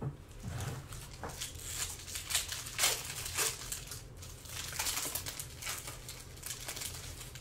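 Foil wrapper of a trading-card pack crinkling and crackling irregularly as hands handle it.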